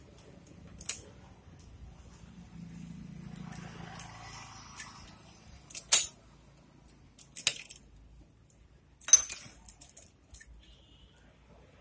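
Metal hand tools and the cam timing sprocket clinking against a Bajaj Boxer motorcycle's cylinder head as the sprocket is pulled free of the slackened timing chain: a few scattered sharp metallic clicks, the loudest about six and nine seconds in.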